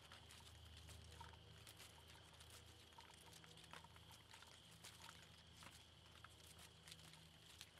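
Near silence: faint woodland ambience with a thin, steady high drone of insects and a few tiny ticks.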